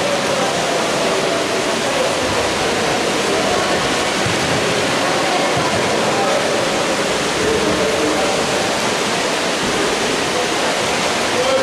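Steady, reverberant indoor pool-hall noise during a water polo game: a continuous wash of water splashing and crowd hubbub, with faint distant voices and shouts.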